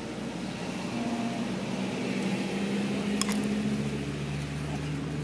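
A steady low mechanical hum, like a small motor or engine running, its pitch stepping slightly lower a little after halfway, with a couple of sharp clicks near the middle.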